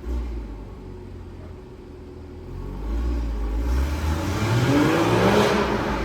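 Porsche Boxster 981's flat-six engine through its stock exhaust, accelerating. A low rumble comes in suddenly, then the revs climb steeply from about three and a half seconds in, loudest near the end.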